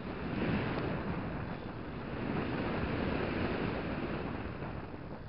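Wind rushing over the microphone of an action camera carried on a radio-controlled plane in flight, a steady roar that swells about half a second in and again in the middle, then eases near the end.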